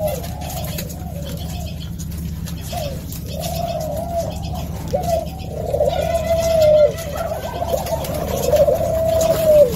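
Several spotted doves cooing, their calls overlapping one after another and growing louder in the second half, over a steady low hum.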